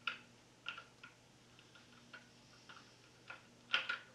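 Electric motor of an RC model warbird's wing nacelle turned by hand, giving irregular faint clicks, about two a second, with a louder click near the end: the motor is catching and jamming inside, which the owner guesses is a loose magnet.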